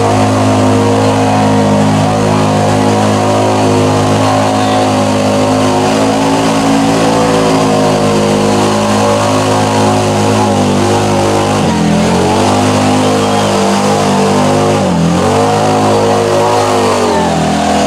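Side-by-side UTV engine running hard at high revs as it pushes through deep mud on oversized paddle tires, the revs dipping briefly twice in the later part.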